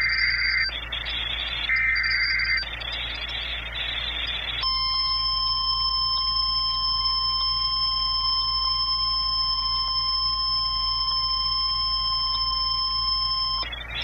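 A NOAA Weather Radio Emergency Alert System broadcast, heard from a weather radio's speaker. Two bursts of the SAME digital header warble come first, the first at the very start and the second about two seconds in, with hiss between them. About four and a half seconds in, the steady 1050 Hz warning alarm tone sounds for about nine seconds, marking a warning-level alert, here a hurricane warning.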